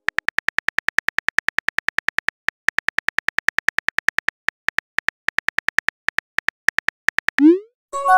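Smartphone keyboard click sounds ticking quickly, about eight to ten a second with short pauses, as a text message is typed. Near the end comes a short rising whoosh as the message sends, then a chime.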